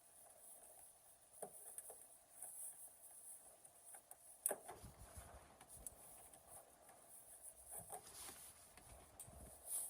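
Faint plastic clicks and rubbing as a tail light assembly is worked loose from its clips by hand, with one sharper click about four and a half seconds in.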